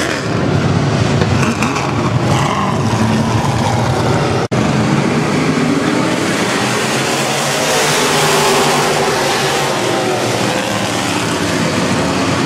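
A pack of dirt-track stock cars racing, many V8 engines running hard together as the field goes by. The sound cuts out for an instant about four and a half seconds in, then comes back thicker as the pack passes.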